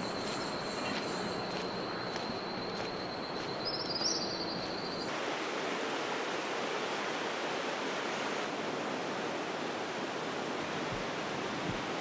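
Steady rushing of a river, with a thin high steady tone and a few faint chirps over it for the first five seconds, which stop abruptly.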